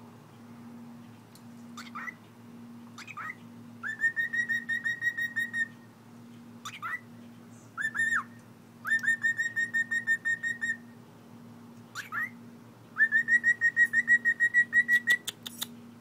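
Cockatiel whistling: a few short rising whistles, then three runs of rapid, evenly repeated whistled notes, each about two seconds long, with single upswept whistles between them. A few sharp clicks come near the end.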